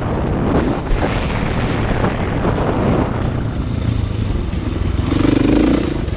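KTM 85SX two-stroke motocross engine running hard under load as the bike is ridden on a dirt track, its note rising and falling with the throttle, with rushing wind noise on the bike-mounted microphone. About five seconds in the engine holds a strong high-revving note for roughly a second.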